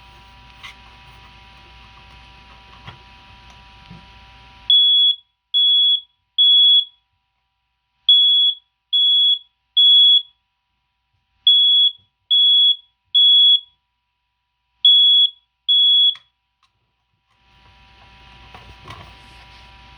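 Household smoke detector sounding its alarm under test: loud, high-pitched beeps in groups of three with a pause between each group, the temporal-3 evacuation pattern. It starts about five seconds in, runs through three full groups and stops after two beeps of the fourth.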